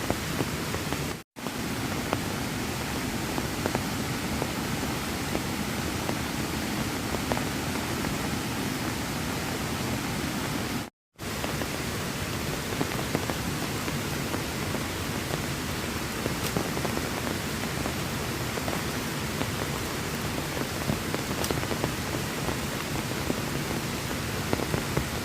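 Heavy rain falling in a steady hiss, with faint drop ticks through it. The sound cuts out to silence for a moment twice, about a second in and about eleven seconds in.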